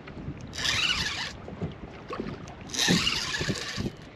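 Baitcasting reel's drag paying out line in two short rasping bursts as a big bull redfish pulls and shakes its head, with faint knocks of gear against the kayak between them.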